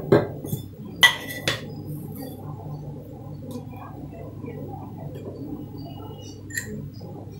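Kitchenware clinking a few times in the first second and a half, and once more near the end, after oil has been poured into an aluminium kadai. A steady low hum runs underneath.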